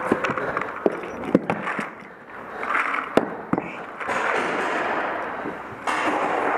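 Several sharp gunshot pops from game guns, echoing in a large hall, over the first few seconds. From about four seconds in comes a steady hiss, louder near the end.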